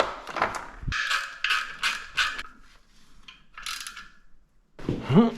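Tire levers working a motorcycle tire bead over a metal wheel rim, giving quick metal clicks and scrapes, about three a second for a second or two, then one more click.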